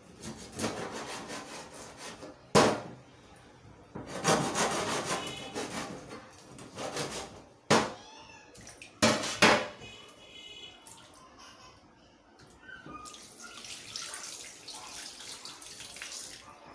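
A knife sawing and scraping through a mackerel on a plastic chopping board, with several sharp knocks of the blade against the board. Near the end, a kitchen tap runs water into the sink.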